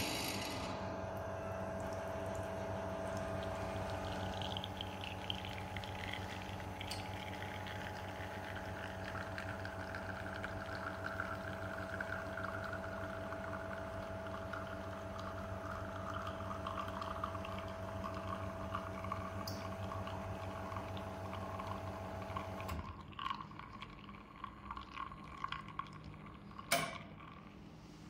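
Deer DR1280 espresso machine pulling a double shot: the pump starts suddenly and hums steadily while coffee streams into two cups, the pouring sound slowly falling in pitch. The pump cuts off about three-quarters of the way through, leaving a few drips and a click near the end.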